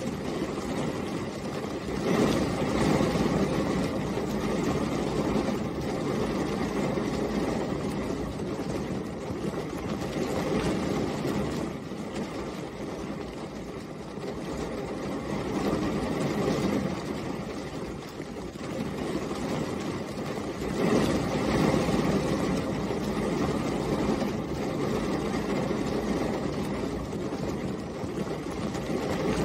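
Steady rain heard from behind rain-spotted glass, a dense patter over a low rumbling wash that swells louder and eases off every several seconds.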